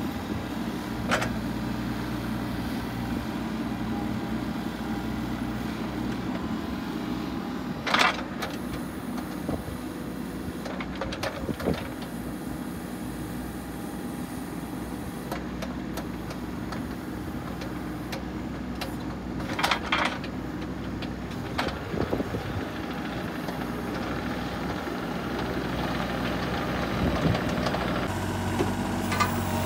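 Kubota mini excavator's diesel engine running steadily while the boom and bucket are worked hydraulically, with a few sharp clanks and knocks, the loudest about eight seconds in and again around twenty seconds. Near the end the engine note changes and grows louder as the machine moves.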